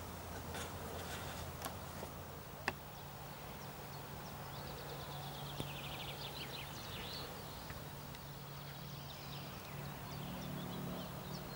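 Outdoor ambience with songbirds: a rapid trill of chirps that falls in pitch about five seconds in, and scattered chirps near the end, over a steady low hum. A few sharp clicks come in the first three seconds.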